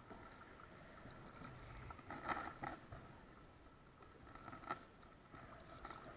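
Faint kayak paddle strokes with soft splashes of water against the plastic hull, two close together about two seconds in and another a couple of seconds later.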